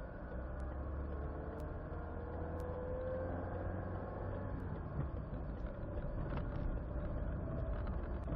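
A car driving in traffic: steady low engine and road rumble, with a faint tone rising about three seconds in and a few light ticks.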